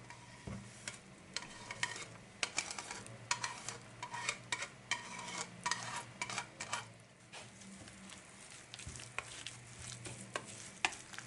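A wire whisk scraping grated carrot off a wooden board into a bowl, a quick run of scrapes and taps, then stirring the shreds into thick wet lentil batter, quieter and sparser in the last few seconds.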